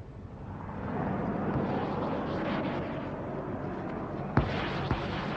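Aircraft engine noise: a steady rushing that swells in over the first second, with two sharp cracks about half a second apart near the end.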